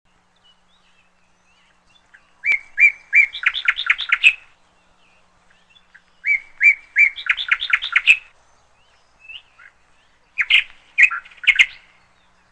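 A bird singing three phrases a few seconds apart. Each phrase is a few evenly spaced chirps that speed up into a quick run of notes.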